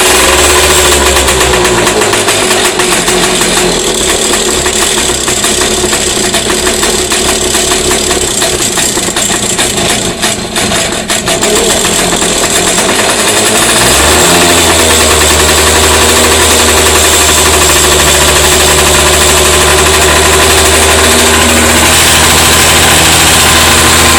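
Volvo Penta Model 39 air-cooled outboard running cold on the choke, just after starting. It runs unevenly at first; about 14 seconds in its speed rises and it settles into a steady run.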